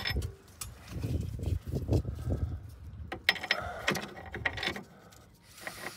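Irregular metallic clicks and knocks from hand tools and parts being worked at the rear upper suspension arm and its newly fitted bush.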